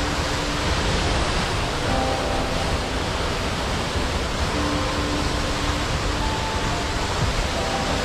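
Steady rushing of a waterfall, with soft background music of long held notes faintly underneath.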